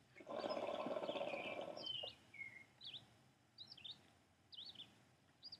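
Hookah bubbling as a long draw is pulled through the water base, lasting almost two seconds; afterwards birds chirp faintly a few times.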